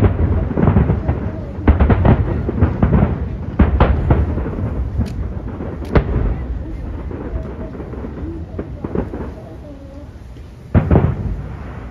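Aerial fireworks shells bursting over a river: a dense run of booms with a low rolling rumble between them, thinning out after the middle, then one more loud boom near the end.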